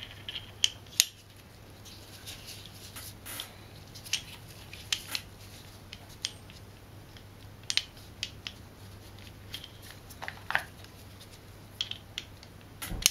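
Scattered light metallic clicks and clinks of steel transmission gears and shaft parts being handled and fitted by hand. A steady low hum runs underneath.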